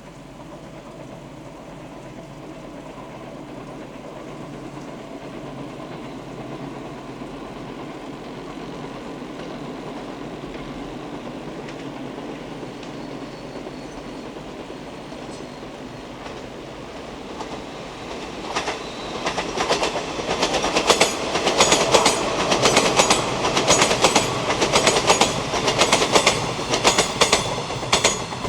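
Electric train approaching with a slowly building rumble, then passing close from about two-thirds of the way in with loud, rhythmic clickety-clack of its wheels over the rail joints.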